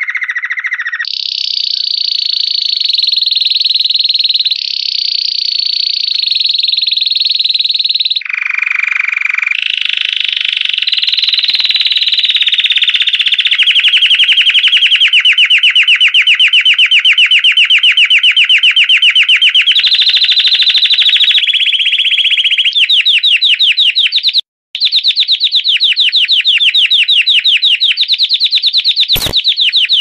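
Belgian canary singing its 'campainha' (bell) song: an unbroken run of rapid trills, switching to a new roll at a higher or lower pitch every few seconds. The song breaks off for a moment near the end, and a single sharp click follows shortly after.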